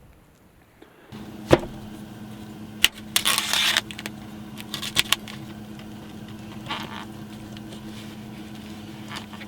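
A steady low hum starts suddenly about a second in. Over it come a few sharp knocks and a short rustling hiss, as of things being handled.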